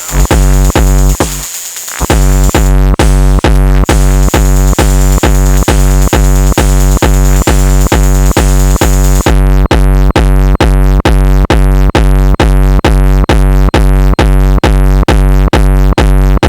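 Techno groove from a Sonic Potions LXR-02 digital drum machine: a steady kick drum about twice a second over a sustained bass tone and a hissing cymbal. The kick drops out for about a second near the start, then returns. About halfway through, a crisp high percussion hit joins on every beat.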